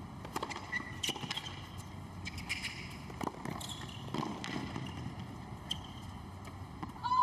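Tennis rally on a hard court, opening with a serve: irregular sharp pops of racquets striking the ball and the ball bouncing, with a few brief squeaks of shoes on the court. A short, loud, high tone sounds near the end.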